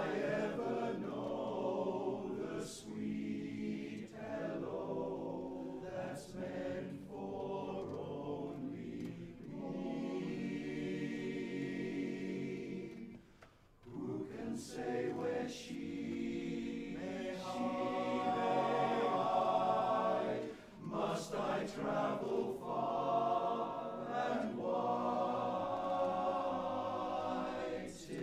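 Male barbershop chorus singing a cappella in close harmony, holding chords that shift from note to note, with a short break for breath about halfway through.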